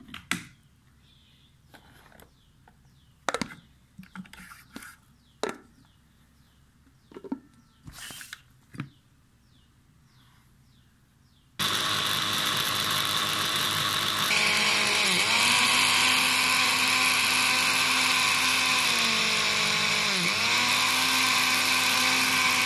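Scattered clicks and knocks, then a Westpoint electric blender starts abruptly about halfway through and runs steadily, blending leafy greens and water into a smoothie. Its motor pitch dips briefly twice as the load shifts.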